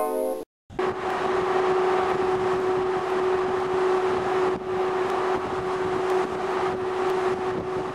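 A steady mechanical hum with one constant tone and a wash of rushing noise, typical of a cruise ship's machinery and ventilation. It starts about a second in, after music cuts off abruptly.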